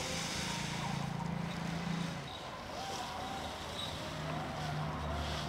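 Shelled peanuts pouring from a jute sack into a stone oil-press mortar, a dry rattling hiss that fades out about a second in, over a low steady hum.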